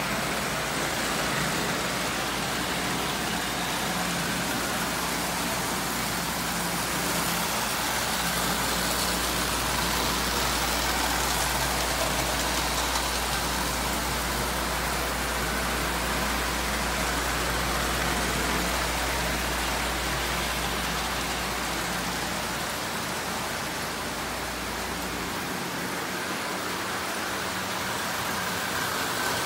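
Several Marx toy electric trains running at once around metal track: a steady, continuous noise of the motors and wheels on the rails. A low steady hum runs underneath and drops away about 25 seconds in.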